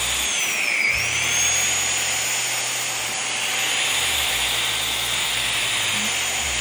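Corded handheld dust mite vacuum running, a steady high whine over airy rushing as it is moved over a bed sheet. The whine dips in pitch about a second in and comes back up. It is drawing strong suction.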